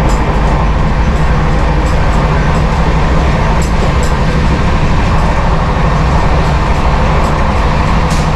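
Indian Railways passenger coach running at about 130 km/h, heard from inside its vestibule: a loud, steady rumble of wheels on rail with scattered clicks.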